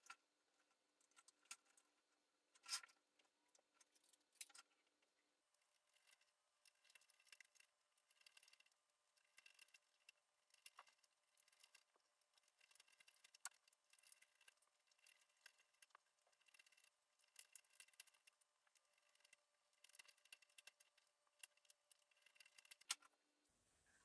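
Near silence with faint, irregular small clicks and ticks from a screwdriver and small screws being worked into the keyboard circuit board, with a few sharper single clicks among them.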